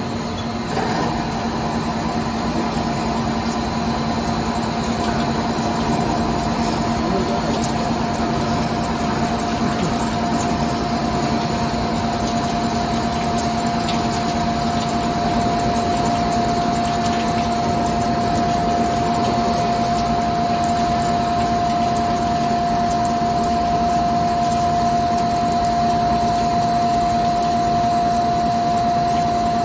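CNC lathe running, its spindle turning a metal bar in the chuck while a turret tool cuts it with coolant spraying: a steady machining noise with a steady whine that grows stronger a few seconds in.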